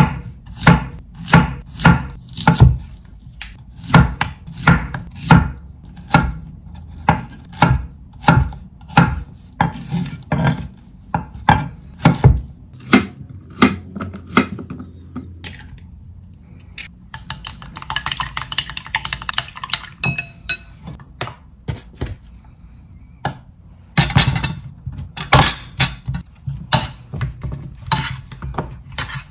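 Chef's knife slicing a Korean zucchini on a wooden cutting board, each cut ending in a knock on the board, about two a second; a little past the middle comes a quicker run of finer cuts as the zucchini is diced. Near the end, a metal spoon clinks in a bowl as the slices are turned in flour.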